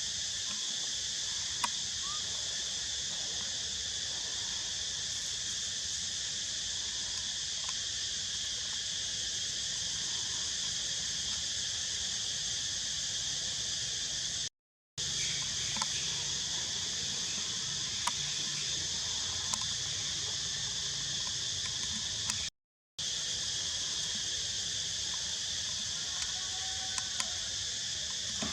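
Steady, high-pitched insect chorus of crickets or cicadas, with a few faint clicks over it; the sound drops out briefly twice.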